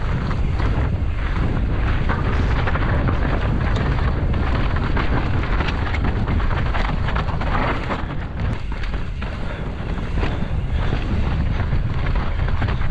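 Wind buffeting the microphone over the crunch of mountain bike tyres on loose rock and gravel during a fast descent, with frequent short knocks and rattles as the bike hits rocks.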